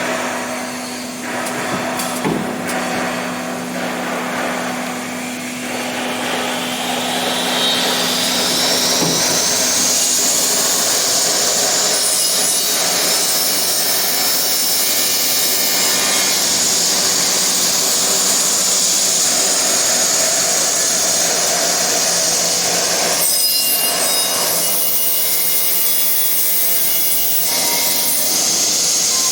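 Nesting CNC router machining wood-based furniture panel. Its spindle's high whine rises in pitch over about five seconds, then holds steady over the continuous cutting noise.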